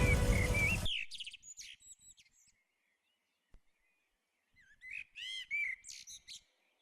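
Background music cuts off suddenly about a second in, leaving small birds chirping and whistling: a run of quick calls just after the cut, a pause, then a louder run of looping chirps near the end.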